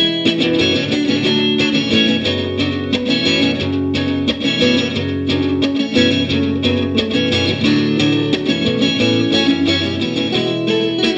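Guitar music: plucked guitar notes played in quick succession over a sustained, full backing.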